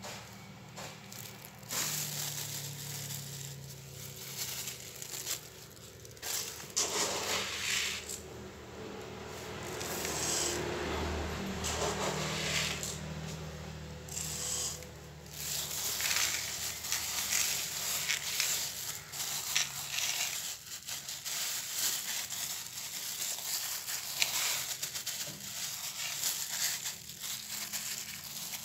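Small pellets being poured onto potting soil and worked around by a hand in a thin plastic glove: rustling and crunching of pellets mixed with crinkling plastic, coming in uneven bursts.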